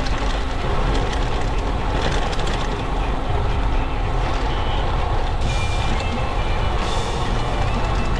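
Steady rush of wind buffeting the microphone and tyre-on-road rumble from a bicycle riding at speed. A few faint high tones join in during the last few seconds.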